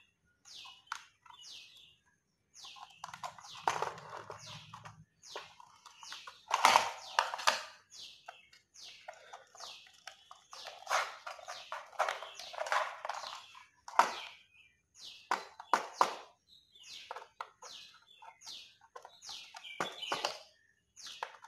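Small birds chirping over and over in short, quickly falling high chirps. Mixed in are irregular clicks and scrapes of a screwdriver and copper wire being worked into switchboard terminal screws.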